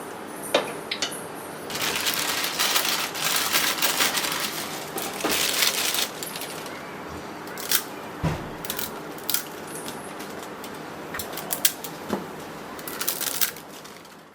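A metal utensil scraping and clinking against a cooking pan in irregular knocks over a steady hiss, typical of noodles being stirred and tossed.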